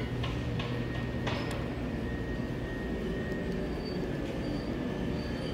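Reproduced running sound of an EF10 electric locomotive, played at the preserved engine so it seems ready to move. It is a steady low hum with a held whine, with a few sharp clicks in the first second and a half.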